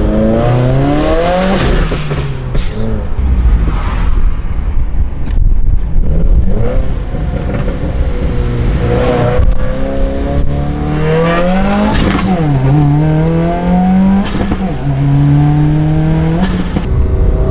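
2015 Subaru WRX's turbocharged flat-four engine accelerating, heard from inside the cabin through a titanium Tomei Expreme Ti single-exit cat-back exhaust. The engine note climbs in pitch, drops back and climbs again several times as it pulls through the gears.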